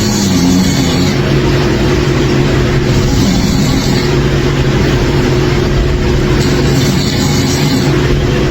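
A person snoring loudly, with a breath cycle repeating roughly every three seconds.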